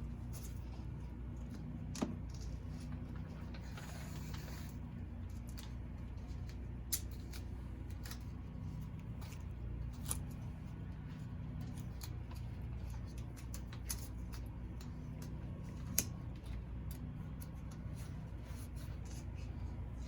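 Small handling sounds of masking tape being torn off and pressed on: scattered light clicks and ticks with a short rustling tear about four seconds in, over a steady low hum.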